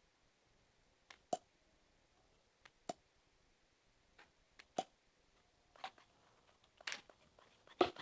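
Slime being worked by hand, giving a handful of small wet pops and clicks spaced a second or so apart.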